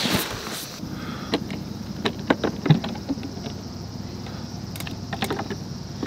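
Handling noises: a brief rustle, then scattered light clicks and knocks of things being moved about, the loudest a little under three seconds in.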